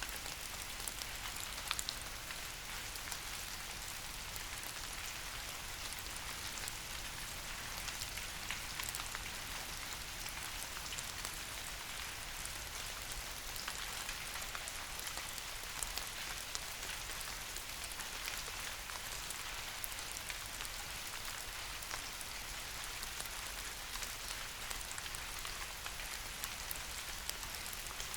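Steady soft rain pattering on leaves, with many small individual drop ticks.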